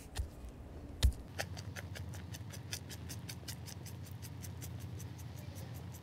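A stone pestle strikes acorns on a granite mortar rock once, about a second in, with a dull thump. Then comes a fast, even run of light scratchy ticks, about five a second, from a bristle brush sweeping the acorn meal on cloth.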